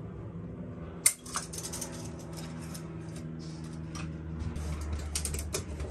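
Workshop handling noise: a sharp click about a second in, then light clattering and knocking, as a tape measure and pallet-wood boards are handled on a wooden workbench.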